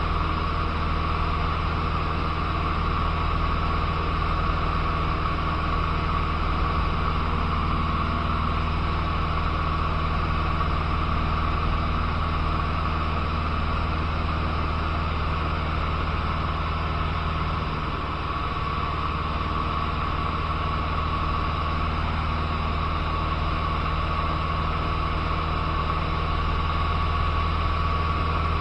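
Cessna 150's four-cylinder Continental O-200 engine and propeller droning steadily in cruise, heard inside the cockpit, with wind noise around the cabin. The level drops slightly about two-thirds of the way through.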